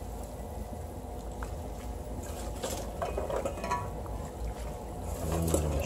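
Pot of pork sinigang broth boiling with a steady bubbling, while handfuls of water spinach (kangkong) are dropped into it, giving faint rustles and light taps around the middle.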